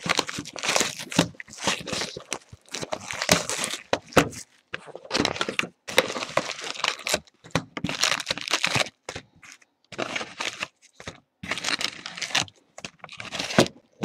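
Plastic shrink wrap crinkling and tearing as it is stripped off a hobby box of trading cards, then the cardboard box being opened and the card packs handled. It comes as a string of short crackling bursts with brief gaps between them.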